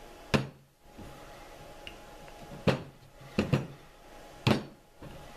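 Handling knocks on a worktable as a clay slab, a wooden rolling pin and pencils are picked up and set down: five short, sharp knocks, one about a third of a second in, a close pair after about three seconds with one just before, and a last one near the end.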